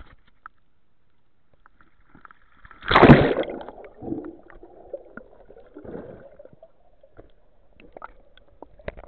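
Water splashing as a free diver ducks under the surface about three seconds in, then muffled underwater sloshing and gurgling with a few scattered clicks.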